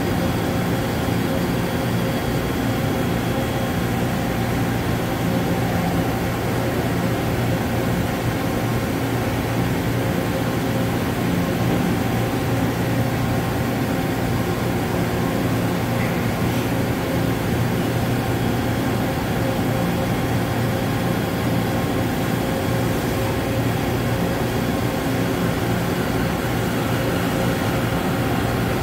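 5-axis CNC milling machine running in a machine shop: a steady mechanical hum with a few held tones over an even hiss.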